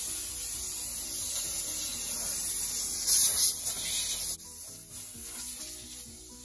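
Background music with a short repeating melody, over a steady hissing rub that swells briefly a little after three seconds and cuts off suddenly about four seconds in.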